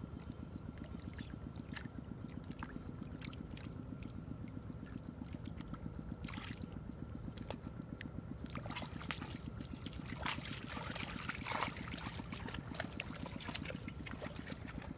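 A small engine running steadily, with water splashing and trickling, the splashing heaviest about two thirds of the way through.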